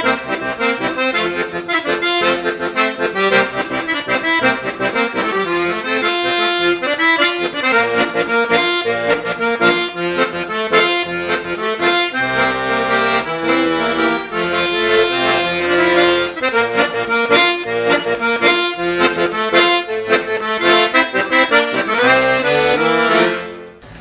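Accordion playing a folk tune, a quick run of changing notes, stopping just before the end.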